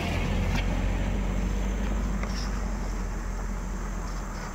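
An engine running steadily with a low, even hum, gradually getting quieter.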